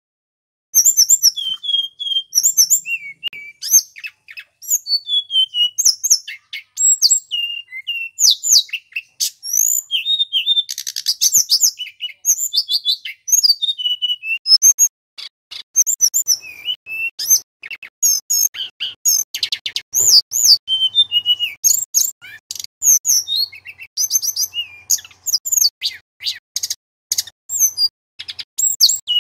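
Male tledekan gunung, a Cyornis blue flycatcher, singing loudly and almost without pause: clear, varied whistled phrases mixed with fast, high chips and trills, broken by short gaps.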